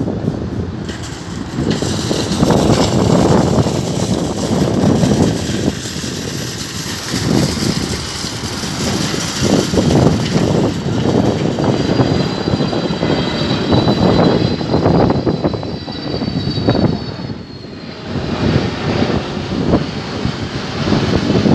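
Airbus A320neo's Pratt & Whitney geared turbofan engines on final approach, a steady jet rumble as the airliner passes overhead. Through the middle, a thin high whine slides slowly down in pitch.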